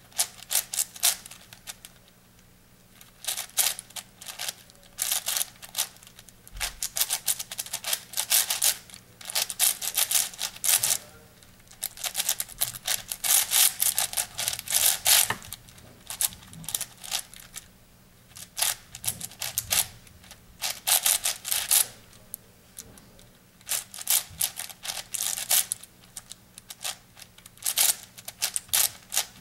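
Plastic layers of an 8x8 puzzle cube turned by hand: bursts of rapid clicking and clacking, broken every few seconds by short pauses.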